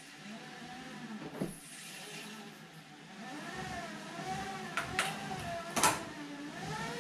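Bicycle rollers whirring under a road bike's spinning tyres, the hum wavering up and down in pitch and getting louder about halfway through. A few sharp knocks cut in, the loudest near the end.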